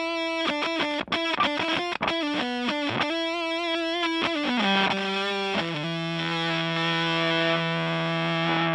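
Electric guitar (an SE Custom PRS) played through a Power2 fuzz pedal into a Fender Blues Junior amp: a quick run of fuzzy single notes stepping downward, then a low note or chord held and left to sustain from about six seconds in.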